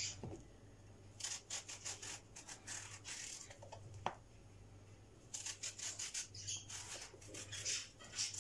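A kitchen knife slicing peeled eggplant lengthwise into long slices: two runs of quick scraping strokes, with a single sharp tap about four seconds in.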